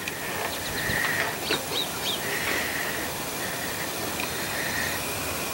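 Outdoor ambience: a bird chirping a few times in the first couple of seconds, over a buzzing trill that repeats about once a second.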